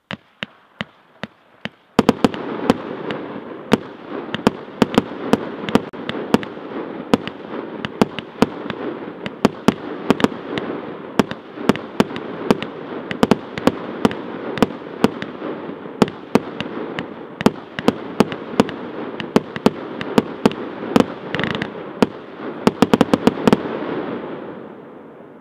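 30 mm Category 4 fireworks battery (cake), Color Glittering Willow, firing: a few separate sharp cracks, then about two seconds in a rapid, dense barrage of shots and bursts over a continuous hiss, fading away near the end.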